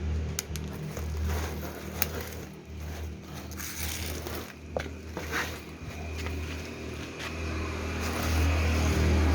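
Scattered scrapes, clicks and rustling from the engine and its packaging being handled during unboxing, over a steady low hum.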